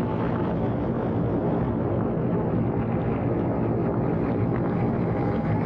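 Steady wind rush over the microphone of a camera riding on an Ultrix 600 electric RC plane in flight, with the faint, steady whine of its electric motor.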